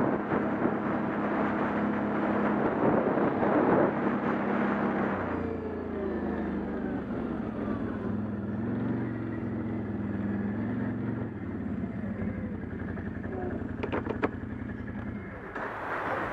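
ATV engine running as the quad rides a snowy trail, with wind on the microphone for the first five seconds. After that the engine runs slower and lower, its pitch rising and falling with the throttle. There are a few sharp clicks near the end.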